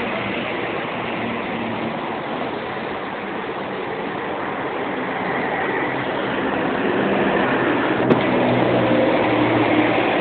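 A vehicle running with a steady rumble and engine hum, getting louder in the last few seconds, with a single sharp click about eight seconds in.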